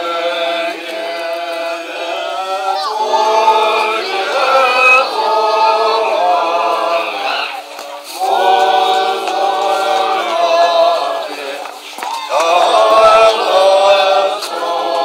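A group of voices chanting a Tibetan Buddhist prayer together in unison, in long sung phrases broken by short pauses for breath.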